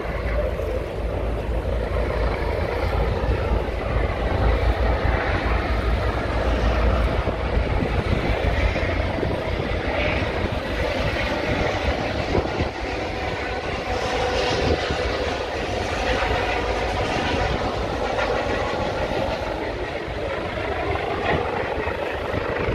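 Helicopters flying over open water: a steady rotor and engine drone mixed with a heavy low rumble that eases off about halfway through.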